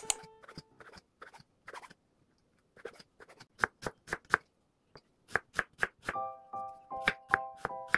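Kitchen knife chopping through an onion onto a wooden cutting board: scattered knocks at first, then quick even strokes about four a second. Light piano music comes in about six seconds in.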